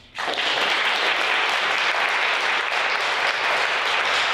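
Audience applauding, the clapping starting suddenly and holding steady at full strength.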